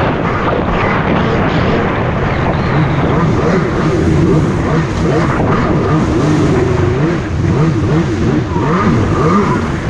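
Jet ski engine running under way, its pitch rising and falling as the throttle changes, over a steady rush of wind and water.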